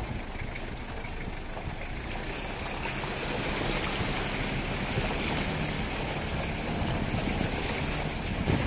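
A vehicle moving slowly along a flooded dirt road, its engine running and its tyres splashing through muddy puddles, over a steady high hiss; it grows louder a few seconds in.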